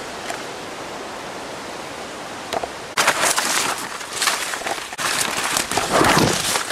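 A steady hiss of running water. From about three seconds in, irregular rustling and crunching of footsteps through leaf litter and brushing undergrowth, loudest near the end.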